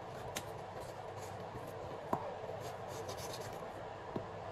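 Light rubbing and scraping with a few soft taps as cut raw potato pieces are handled on a kitchen countertop.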